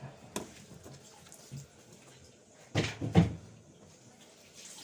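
Two dull knocks about half a second apart, with a few light clicks before them.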